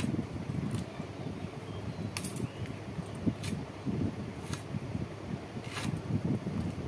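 Green plantain being sliced into chunks on a boti, a floor-mounted curved blade: about six crisp cuts at irregular intervals of roughly a second, over a steady low rumble.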